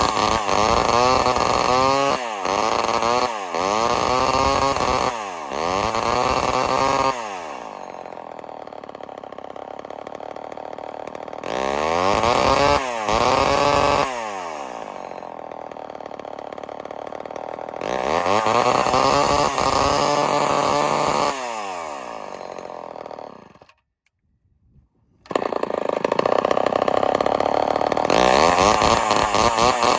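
Homelite XL-12 two-stroke chainsaw engine being blipped up to speed and dropped back to idle over and over. It cuts out suddenly for about a second and a half, then catches again running fast. The owner puts the cutting out down to the ground wire touching the coil; the saw has seized before and needs a new piston and cylinder.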